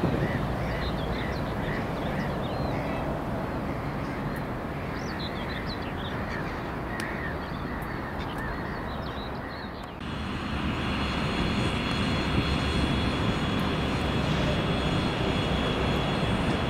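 Birds chirping for about the first ten seconds. Then an abrupt change to a louder, steady noise with a high steady whine: an approaching freight train hauled by a 3ES4K electric locomotive.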